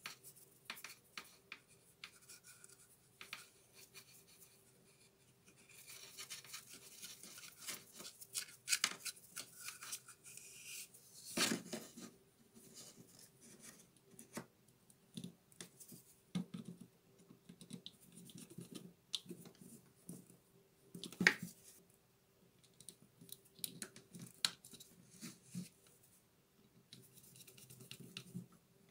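Small clicks and scratches of hands and a small screwdriver working wires into the plastic switch of a Bosch GWS 7-125 angle grinder, with a denser stretch of scratching in the first half and two louder knocks, one in the middle and one later. A faint steady hum runs underneath.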